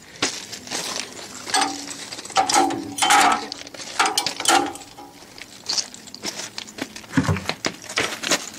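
Irregular metal clinks and knocks as heavy steel tools are handled and set down, including a large hub-nut socket on a bar, with a few short ringing notes.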